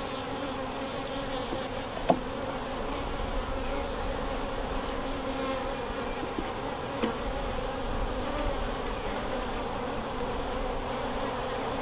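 Honeybees buzzing in a steady, continuous hum from an open hive of a colony under inspection. There is one sharp knock about two seconds in and a fainter one later.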